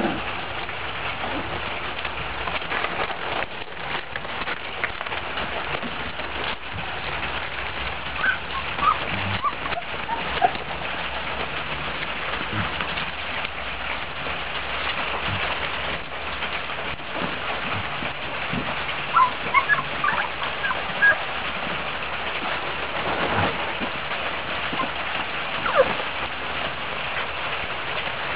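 Chesapeake Bay retriever puppies giving a few brief, high-pitched squeaks and whimpers over a steady hiss.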